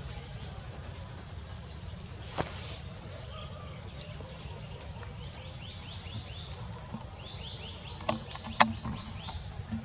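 Outdoor woodland ambience: a steady high insect drone, with runs of short, quick rising chirps in the second half and a few sharp clicks or snaps, the loudest near the end.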